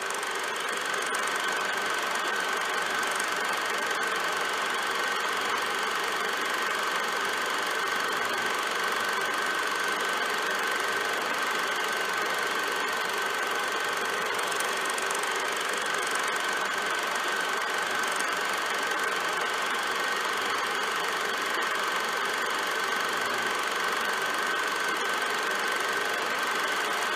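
Steady mechanical running noise, like a small machine or motor, with a constant high whine through it.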